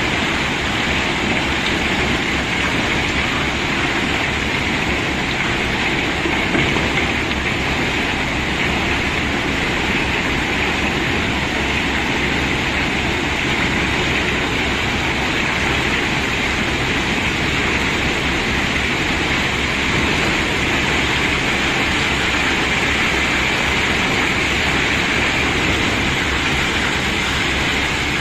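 A load of cobblestones pouring out and rattling against each other, countless small stone knocks merging into one dense, unbroken clatter.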